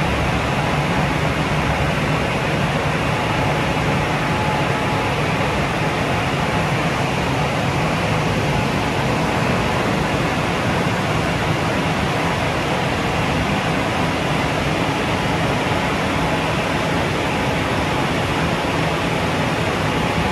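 WashTec SoftCare Bravo rollover car wash running, a loud, even rushing noise with a steady low hum underneath that holds without a break.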